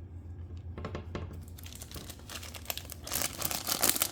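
Plastic wrapper of a 1987 Donruss baseball card rack pack being torn open and crinkled: a few light clicks about a second in, then crackly crinkling from about halfway, growing louder near the end.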